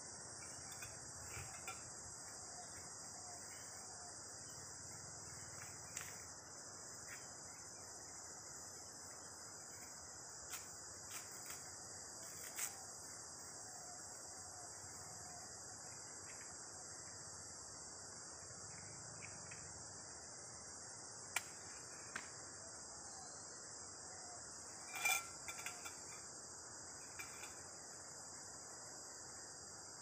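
Steady, high-pitched chorus of insects in dense tropical greenery, with a few scattered sharp clicks and knocks of equipment being handled, the loudest about three-quarters of the way through.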